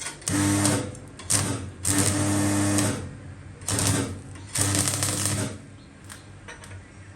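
Electric arc welder laying short welds: five bursts of buzzing crackle over a steady electrical hum, each under a second long, with short pauses between.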